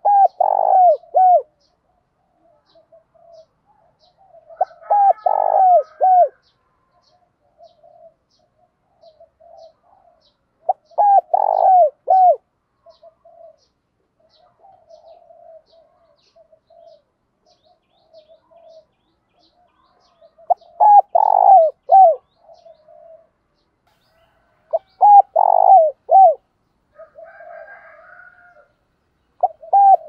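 Spotted dove cooing its song: five loud phrases of a few coos each, some seconds apart, with soft low coos in between.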